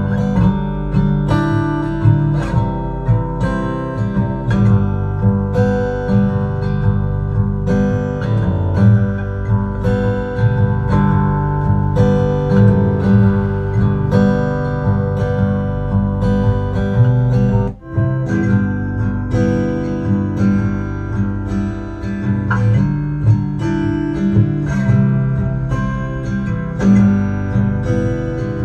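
Music led by strummed acoustic guitar over a strong bass line, played back through a portable Bluetooth speaker for a sound and bass test. The music breaks off for an instant about eighteen seconds in.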